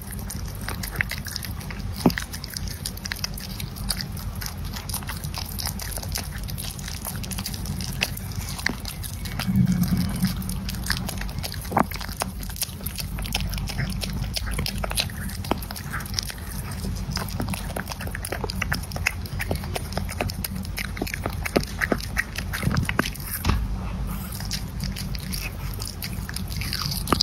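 Pomeranian puppy gnawing and biting on a corn cob: a steady run of small, quick clicks and crunches of teeth on the kernels, with a brief louder low sound about ten seconds in.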